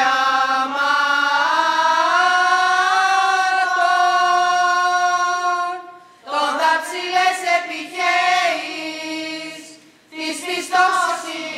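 A group of women sing a Greek Orthodox Byzantine chant hymn to the Theotokos together. They hold one long note for about six seconds, break briefly, sing a moving phrase, and pause again about ten seconds in before going on.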